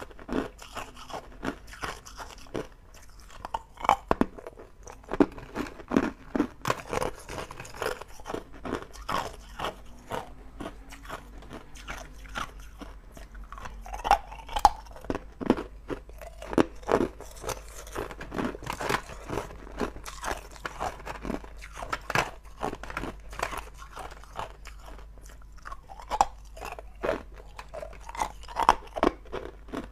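A person biting and chewing hard ice cubes: an irregular run of sharp, crisp crunches, several a second, as the ice cracks and shatters between the teeth.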